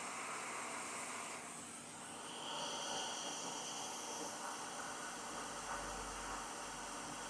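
Steady hiss of a hot air rework station blowing over a laptop logic board while a component is reflowed. A faint high whine joins it briefly a few seconds in.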